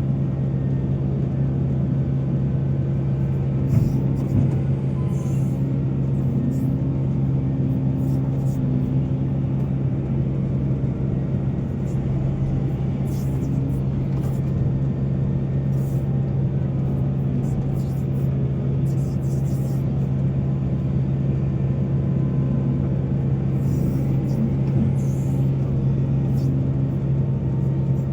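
Heavy diesel engine of mining machinery running steadily, a constant low drone with no change in speed.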